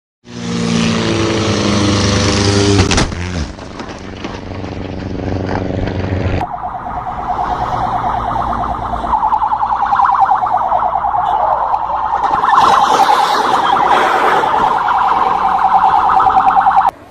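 A jet engine running steadily with a high hiss, heard from the cockpit, which changes sharply about three seconds in. It cuts off at about six seconds and gives way to a loud, rapidly warbling electronic alarm that holds to the end.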